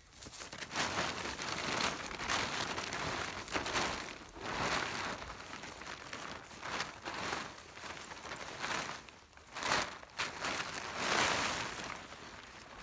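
Large plastic tarp crinkling and rustling as it is handled and dragged, in irregular swells.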